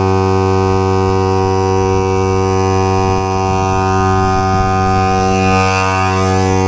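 Built-in air compressor of a NOCO Boost+Air AX65 jump starter running steadily, inflating a car tyre from about 5 psi. It gives a loud, even buzzing hum that does not change in pitch.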